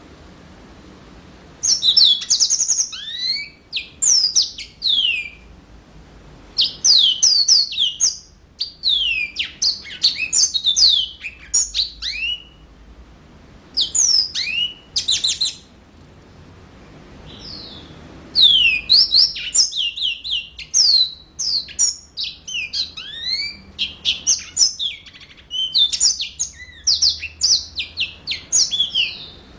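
Yellow-fronted canary singing in full, energetic song: bursts of rapid, high twittering phrases made of quick down-slurred notes, separated by short pauses.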